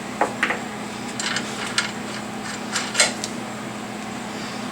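Light clicks and taps of hand tools and parts being handled during a test fit, the sharpest about three seconds in, over a steady low hum.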